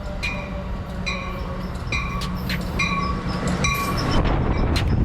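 Amtrak Pacific Surfliner train pulling into the station: its locomotive bell dings about once a second over the steady rumble of the train, getting louder, with a few sharp clanks near the end.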